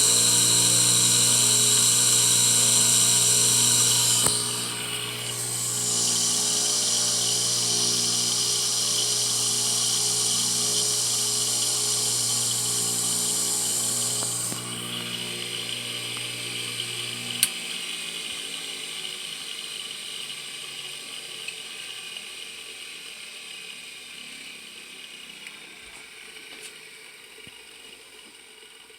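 Bench lathe's two-speed single-phase induction motor running with a high-pitched whine over a steady electrical hum; the whine dips briefly about four seconds in, then comes back. Past the middle the whine drops, a click sounds and the hum cuts out as the power goes off, and the motor and lathe coast down, fading away.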